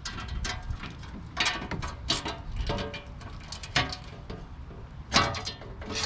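Socket ratchet clicking in short, irregular strokes with metallic clanks, tightening hose clamps on a cold air intake.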